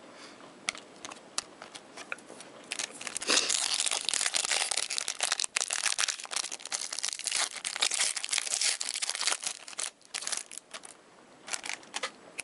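A foil hockey card pack wrapper being torn open and crinkled by hand: scattered crackles at first, then a few seconds of dense crinkling and tearing, easing off to a few crackles near the end.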